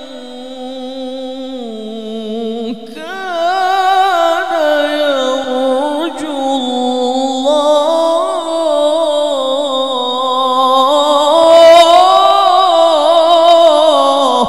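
A man's voice reciting the Quran in the melodic tilawah style into a microphone, drawing out long ornamented phrases whose pitch wavers, climbs and falls. A short phrase gives way about three seconds in to a much longer one that swells near the end and then stops.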